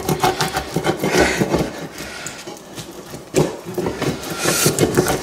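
Wooden spatula scraping against a burnt-on layer of rice pudding stuck to the bottom of a stainless steel Instant Pot inner pot. It comes as a rapid, irregular scratching, with a quieter spell about two to three seconds in.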